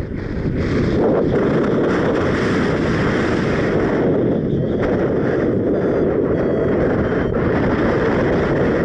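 Loud wind noise on the microphone from strong wind in flight under a paraglider. It builds over the first second, holds steady, and drops away near the end.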